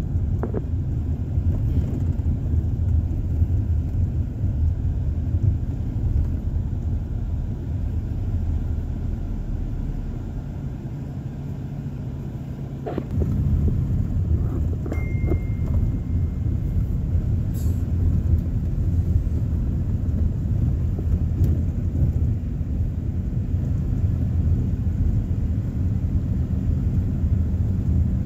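Low, steady rumble of a moving car heard from inside the cabin: engine and road noise. It eases off for a few seconds and picks up again about thirteen seconds in.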